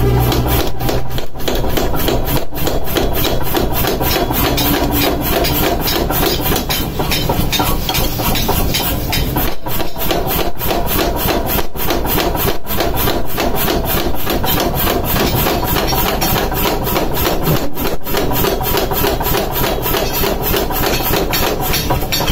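Power hammer pounding red-hot leaf spring steel on the anvil in a fast, steady run of blows, drawing out a meat cleaver blank.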